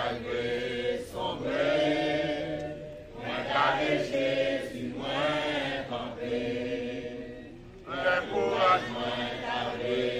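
Group of voices chanting in song, in several long held phrases with short breaks between them.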